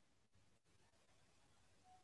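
Near silence: a pause in speech with only faint background hiss.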